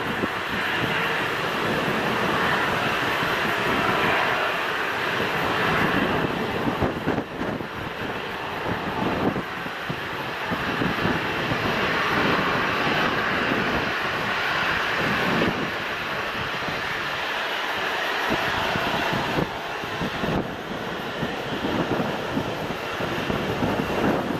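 Airliner engines running with a steady roar, mixed with gusty wind buffeting the microphone in irregular rumbling bursts.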